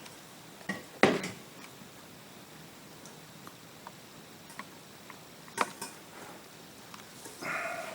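Sharp clicks and knocks from small metal crocodile clips on a helping-hands soldering stand being handled and clamped onto wires. The loudest knock comes about a second in, another just after the middle, with faint ticks between and a brief scraping rustle near the end.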